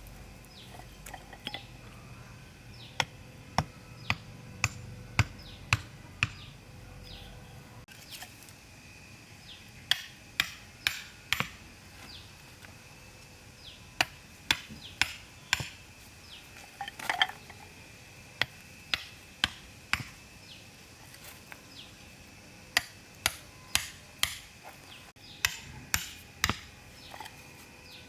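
Hammering: sharp, separate blows in short runs of two to four, with pauses of a few seconds between runs.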